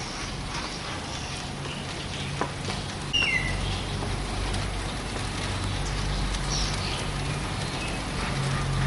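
Outdoor town ambience: a low steady rumble of traffic that grows louder about three seconds in, with a few short bird chirps, one of them falling in pitch at about the same point.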